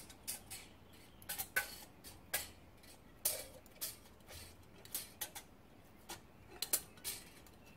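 A steel feeler gauge blade clicking and tapping against a straight edge and the cast engine-block deck while it is slid under the straight edge to check the Toyota 3S-FE block for warpage. A dozen or so light, irregular clicks.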